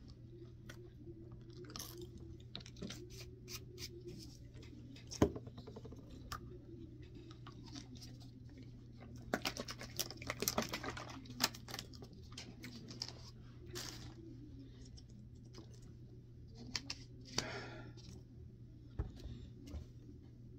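Faint crinkling, clicking and rustling as a plastic water bottle and a small drink-mix packet are handled, busiest around the middle, over a steady low hum.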